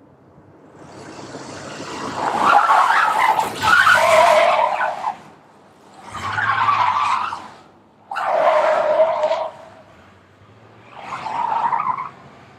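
Snow-clearing machinery: a steady low engine hum under a harsh grinding noise that swells up and dies away five times, each time for a second or two.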